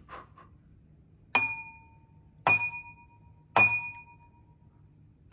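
Water-filled wine glasses tapped with a spoon three times, about a second apart, each tap giving a short, clear glassy ring, as the glasses are played as tuned notes.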